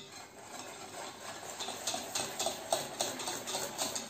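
Wire whisk scraping and clicking against a stainless steel mixing bowl, whisking hot milk into the egg, sugar and cornstarch mixture for a pastry cream. The strokes get going about a second and a half in, quick and regular.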